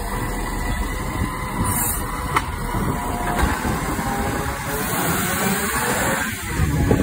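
Iveco Stralis side-loading garbage truck running, its hydraulic arm setting the emptied bin back down, with a single knock a couple of seconds in; the truck then moves off.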